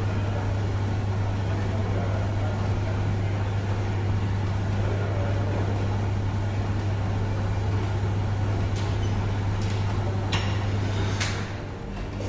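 Gym room ambience: a steady low hum over a background of even noise, with a few short sharp clanks from weight-training equipment about nine to eleven seconds in.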